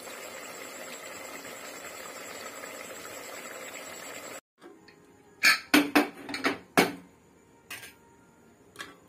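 A steady hiss with a faint high whine. Then, after a sudden cut, a quick run of about five sharp metal clanks from an aluminium cooking pot being handled, and two lighter clinks near the end.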